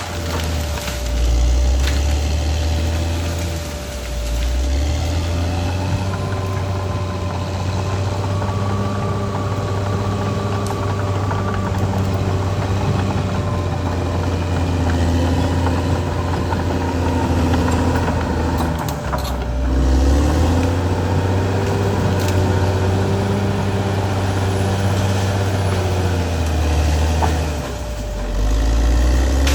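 Caterpillar D6R XL crawler bulldozer's diesel engine running under working load, its low note dipping and picking up again several times, with a steady whine above it. A short crack comes about two-thirds of the way in.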